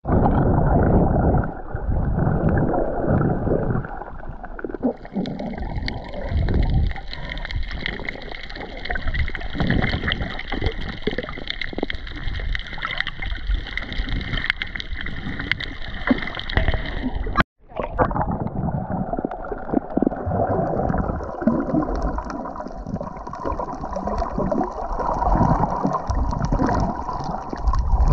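Sea water gurgling and sloshing against the microphone of a camera at or below the surface while snorkeling. The sound cuts out for an instant about seventeen seconds in, then carries on.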